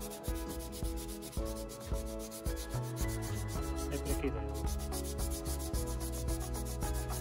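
Sanding on a part of an old electric iron, with quick, regularly repeated rubbing strokes over background music.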